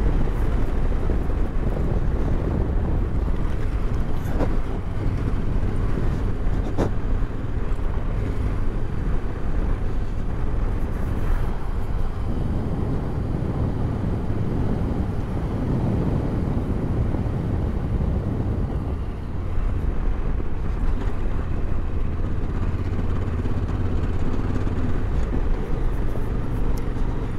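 Yamaha Ténéré 700's parallel-twin engine running steadily under way.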